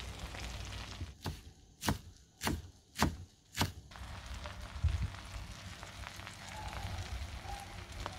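Butter sizzling and crackling in a frying pan, broken between about one and four seconds in by five sharp knocks about half a second apart; the sizzle then carries on.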